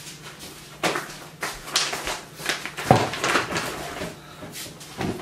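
Handling noise of a person coming in with a shopping bag: the bag rustling, footsteps, and a string of short knocks as it is brought to a table and set down, the loudest a dull thump about three seconds in.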